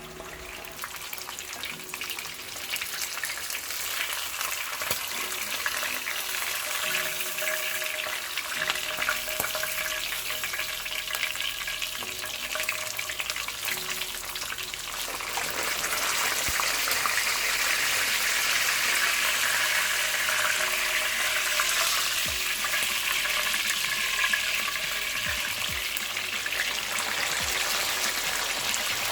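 Daing na tilapia sizzling as it fries in hot oil in a pan. The sizzle is steady and grows louder and fuller about halfway through.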